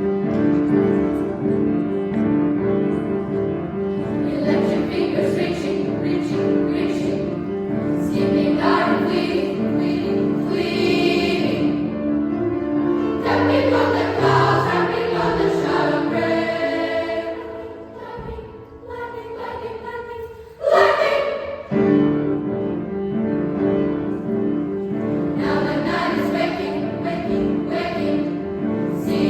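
Children's school choir singing with piano accompaniment, repeated piano chords under the voices. The music drops to a quieter passage about two-thirds of the way through, then comes back in suddenly and loudly.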